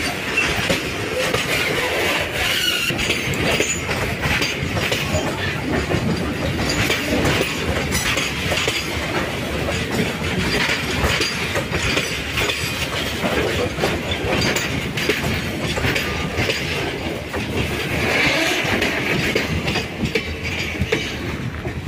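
Indian Railways container freight train's wagons rolling past close by: a steady rumble of steel wheels with clickety-clack over the rail joints and wheel squeal at times.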